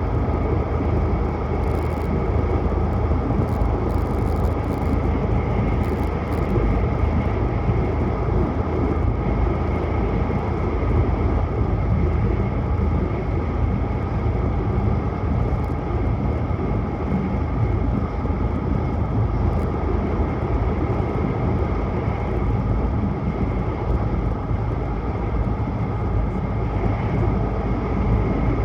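Tohoku Shinkansen train running at speed, heard from inside the passenger cabin: a steady low rumble and rush of wheels and air, with a faint steady whine above it.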